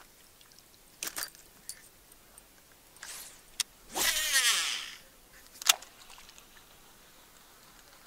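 A cast with a baitcasting rod and reel: a few sharp clicks and a quick swish, then the reel's spool whirring for about a second as line pays out, falling in pitch as it slows, and a sharp click near the end.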